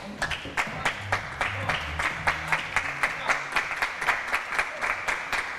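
Audience applauding, the claps coming quickly and fairly evenly, about five a second.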